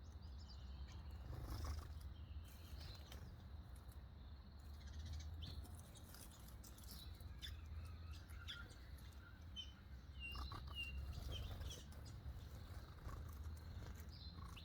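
Small birds chirping: scattered short, high chirps, busiest around the middle, over a steady low rumble.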